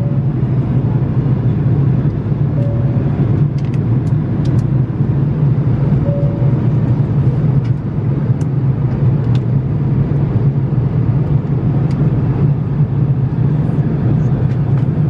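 Steady cabin noise of an Airbus A330-300 airliner in flight, a constant rumble of engines and airflow, with a few faint light clicks.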